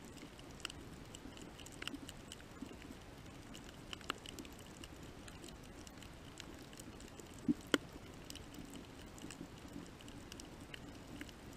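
Underwater reef ambience picked up by a camera underwater: a steady low hiss and hum with scattered sharp clicks and crackles, and two louder clicks in quick succession about seven and a half seconds in.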